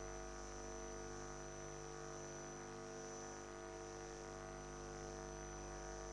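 Steady electrical hum made of several constant low tones with a faint high whine above them, unchanging throughout.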